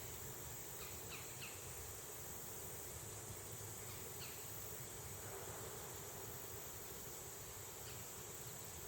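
Steady chorus of insects, a continuous high-pitched trilling drone, with a few short, high falling chirps near the start, around four seconds in, and near the end.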